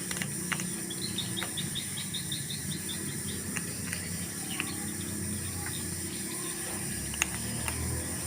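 A rapid run of about a dozen short, high chirps, roughly six a second, starting about a second in and lasting under two seconds. It sits over a steady background hiss and low hum, with a few faint clicks.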